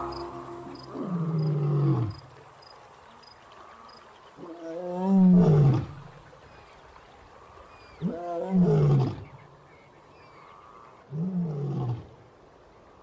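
African lion roaring: four deep roars a few seconds apart, each falling in pitch. The middle two are the loudest, and the last is shorter and weaker, as the roaring bout begins to trail off.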